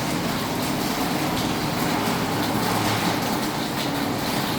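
Heavy rain falling steadily on a roof, a continuous even hiss and patter.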